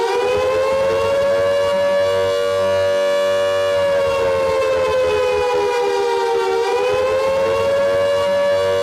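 Emergency alert siren of the civil-defence kind, starting suddenly and holding a steady two-note wail; its pitch sags slightly about six and a half seconds in and rises back.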